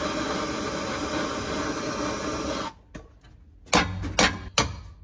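Handheld gas torch hissing steadily as it heats the end of a steel exhaust pipe, shut off abruptly about two and a half seconds in. Then three sharp ball peen hammer strikes on the pipe near the end, tapping out a dimple so an adapter will fit.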